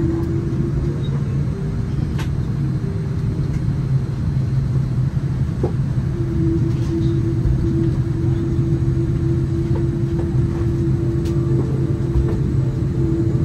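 Cabin noise inside a taxiing Boeing 787-9 airliner: a steady engine and air-system hum over a low rumble, with a steady mid-pitched tone that fades about a second in and comes back about six seconds in, and a few faint clicks.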